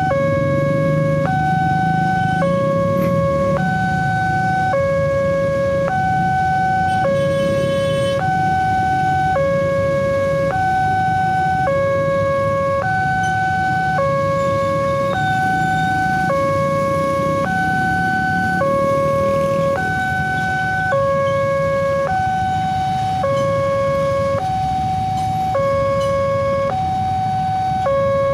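Railway level-crossing warning alarm sounding while the crossing is closed: an electronic two-tone chime that alternates between a lower and a higher tone about once a second. Underneath it is a low rumble of waiting motorcycle engines.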